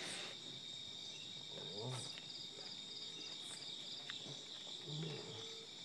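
Crickets chirping in a steady, high, pulsing trill. Faint low voices murmur briefly about two seconds in and again about five seconds in.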